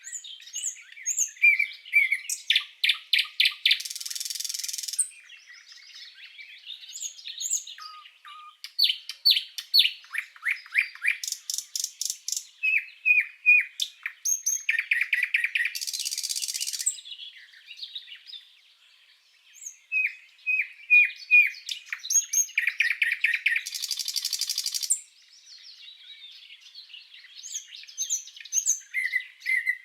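Common nightingale singing: phrases of whistled notes, fast runs of repeated notes and dense, high trills, separated by short pauses.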